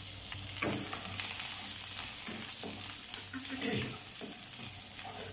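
Chopped onions sizzling in a little hot oil in a nonstick kadai, just added and starting to sauté. A wooden spatula stirs them, scraping and tapping against the pan now and then.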